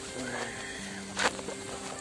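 Background music of sustained, held notes over a light hiss, with one sharp knock a little over a second in.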